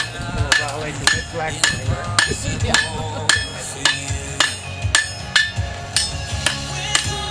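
Blacksmith's hammer striking steel on an anvil in a steady rhythm, about two blows a second, each with a short metallic ring, forging a square spike nail. Music plays underneath.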